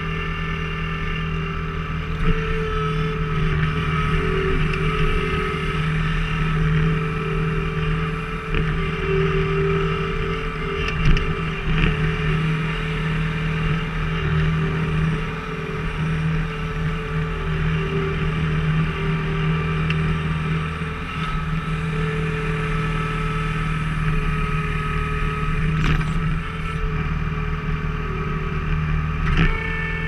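Skid steer engine running steadily under hydraulic load while its firewood-splitter attachment is worked, the level swelling and easing a little. A few sharp knocks, the loudest about eleven seconds in.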